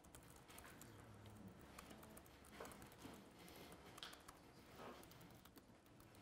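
Faint keystrokes of typing on a computer keyboard, a scatter of light clicks.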